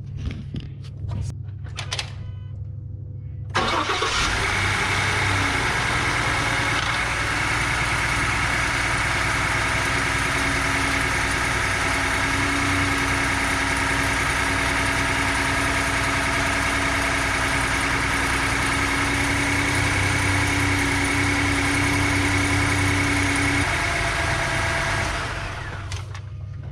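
2016 Ford F-150's engine started for the first time after an oil change. It catches about three and a half seconds in, idles steadily, then dies away near the end as it is switched off.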